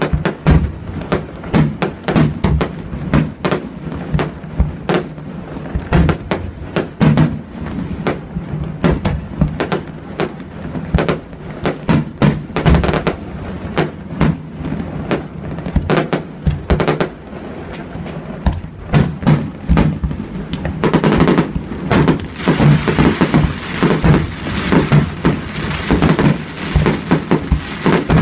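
Fireworks display: aerial shells launching and bursting in quick, irregular succession, several bangs a second. About three-quarters of the way in the bangs come thicker and denser.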